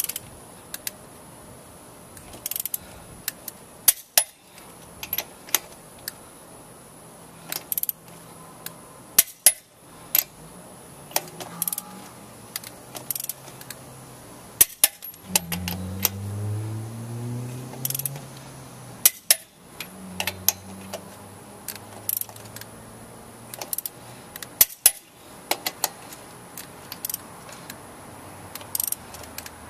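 Click-type torque wrench tightening lug nuts to 140 ft-lb: repeated sharp clicks and metallic clinks of the wrench and socket on the nuts, in several short bursts. A low droning hum rises in pitch about halfway through and holds for a few seconds.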